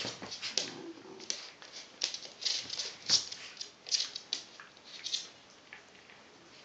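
Cairn terrier tussling with a large stuffed toy: a run of short, irregular scuffling and play noises that thins out near the end.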